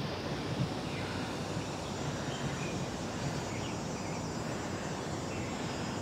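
Steady rushing outdoor background noise, with a few faint, short, high bird chirps scattered through it.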